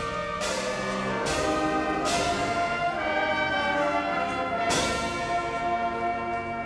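Marching band playing loud, sustained brass chords, with several cymbal and drum hits: about four strikes across the passage. The chords change a few times, and the last one is held near the end as the sound begins to fade.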